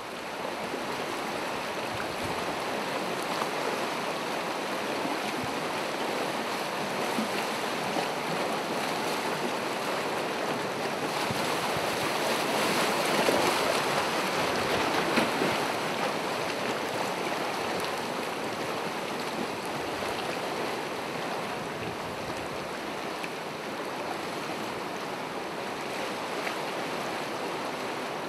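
Gentle ocean waves washing onto the shore in a continuous wash of surf, swelling a little about halfway through, with some wind on the microphone.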